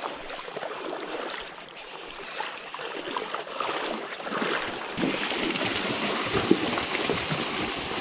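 Shallow creek water running, a steady rushing that gets louder about five seconds in.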